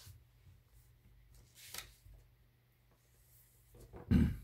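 Quiet small-room tone with a steady low hum, a soft brief rustle about halfway through, and a short low thump near the end.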